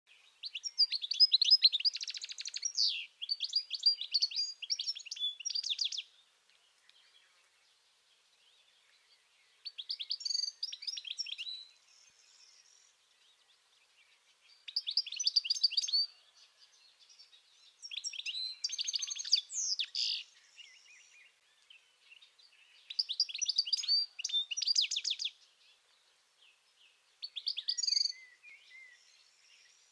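European goldfinch singing: high-pitched, rapid twittering phrases in six bursts, the first about six seconds long and the rest one and a half to two and a half seconds, with short quiet pauses between.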